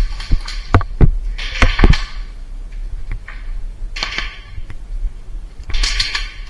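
Airsoft guns firing single shots: about five sharp cracks in the first two seconds, over a steady low rumble, with short bursts of hissing noise.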